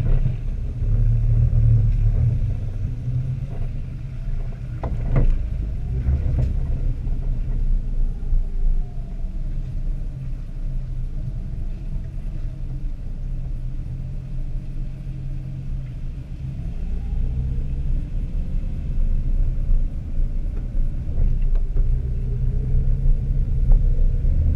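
Jeep engine running at low trail speed: a steady low rumble that slowly rises and falls in pitch, with a couple of short knocks about five and six seconds in.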